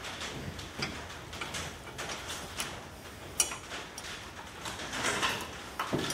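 Irregular clicks and knocks of tools and metal hardware as a 1964 Thunderbird's raised trunk lid is held up and its hinges are worked on, with one sharp knock about three and a half seconds in.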